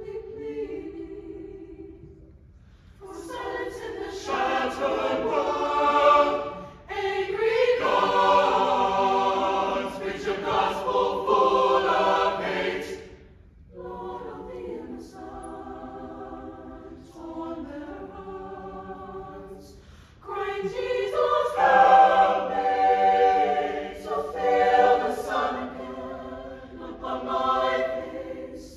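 Mixed high school choir of women's and men's voices singing a slow choral piece in long sustained chords. The phrases swell loud, drop to a softer passage about halfway through, then build loud again near the end, with brief breaths between phrases.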